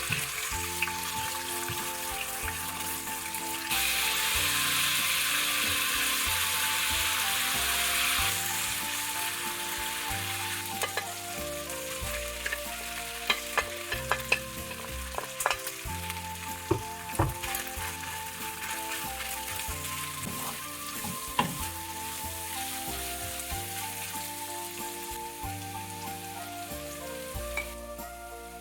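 Food frying in hot oil in a pan, a steady sizzle that grows louder from about four seconds in to about eight seconds, then settles. A utensil stirring the food clicks against the pan now and then through the middle.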